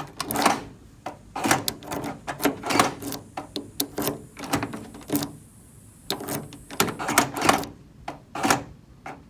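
Irregular clicks and rattles from a copied key being handled and pushed in, about a dozen over several seconds.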